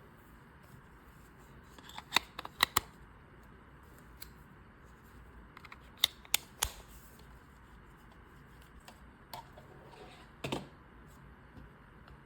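Sharp plastic clicks and taps from handling a wireless mouse: a cluster of about four about two seconds in, three more around six seconds, and one near the end.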